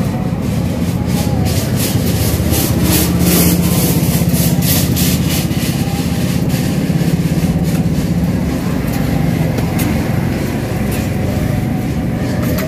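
Steady engine hum with a low drone that swells in the middle, and a quick run of sharp scrapes or clicks in the first few seconds.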